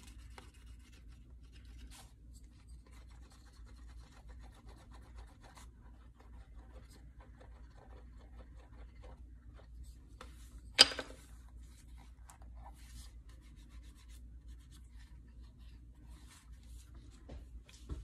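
A wooden edge burnisher rubbed back and forth along the damp, gum-tragacanth-coated edge of a leather sheath: soft, faint scratchy rubbing as the friction glazes the edge. A single sharp knock stands out about eleven seconds in, and a lighter knock comes at the very end.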